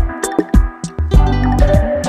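Background music: a guitar-led track over bass and drums with a steady beat.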